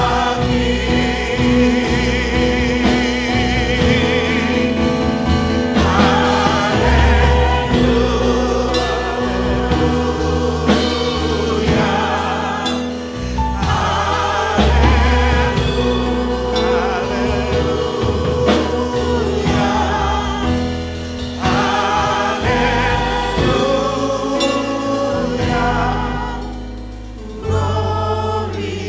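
Gospel worship song sung by a church praise team and congregation as a choir, over held low bass notes.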